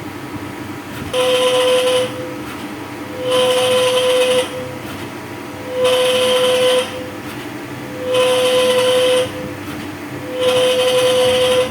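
A machine giving five short whistling hisses over a steady running hum, each about a second long and two to three seconds apart; the owner takes it for an abnormal noise.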